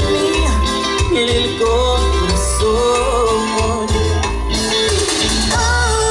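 Live cumbia band playing: a lead melody over a bass line that pulses in short, regular notes.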